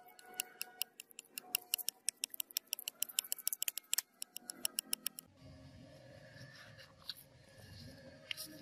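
Steel knife blade being stroked back and forth on wet sandpaper, giving rapid sharp clicks for about the first five seconds. Then the clicks stop and a low even rumble takes over.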